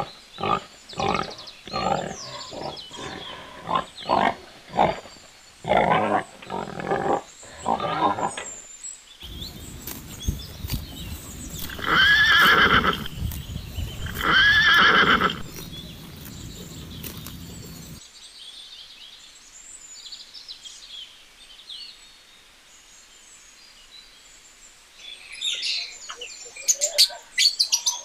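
A string of short piglet calls, then a horse neighing twice, loud and long. Quick high bird chirps come in near the end.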